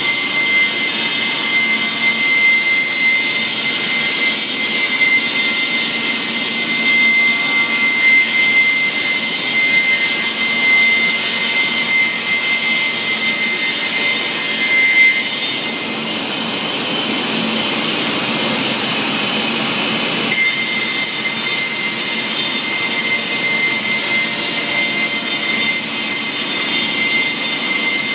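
Weeke BP CNC machining centre running on a wood panel: a steady, high-pitched machine whine. About fifteen seconds in, the whine gives way to a hissier sound for about five seconds, then comes back abruptly.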